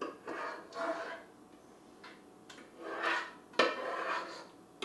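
A utensil scraping against a saucepan as melted chocolate is emptied from it into a fondue pot, in several short strokes. There is a single sharp knock of metal a little past halfway through, the loudest sound.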